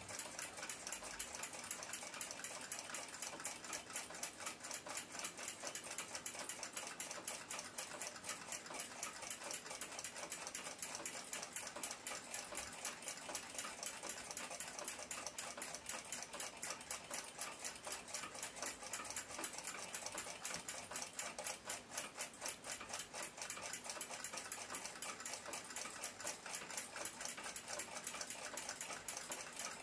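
Quiet, fast and even ticking of a mechanical clock movement, running without a break.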